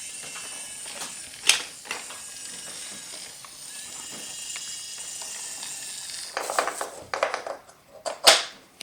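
Small electric motor of a battery-powered toy train running with a steady whine for about six seconds, then clattering of toy pieces handled together and a sharp knock near the end.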